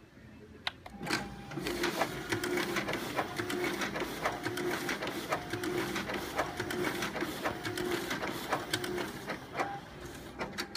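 Konica Minolta bizhub C554e colour copier running a copy job, its automatic document feeder pulling the originals through. A steady whir full of sharp clicks with a repeating beat about once a second starts about a second in and eases off near the end.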